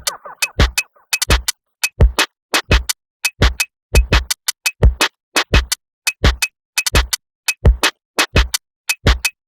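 Electronic background music built on a drum-machine beat: short, clipped hits falling in pairs about every 0.7 seconds, with brief gaps of silence between them. A synth melody fades out just after the start.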